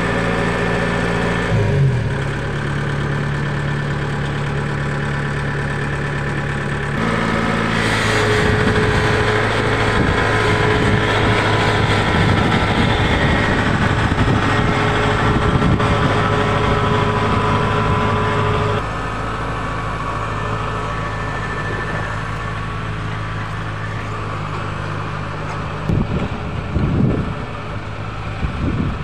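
Kubota DC-70 combine harvester's diesel engine running steadily at idle. Its note shifts about seven seconds in and it grows a little quieter after about nineteen seconds.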